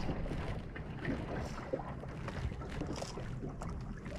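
Small fishing boat's outboard motor running steadily with a low rumble, with wind buffeting the microphone and scattered small clicks and knocks.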